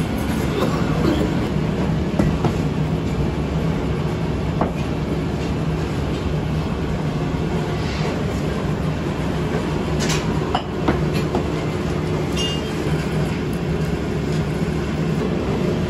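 Steady low mechanical rumble of workshop machinery, with a few sharp taps and scrapes of a knife on a cast aluminium lattice panel about two-thirds of the way through.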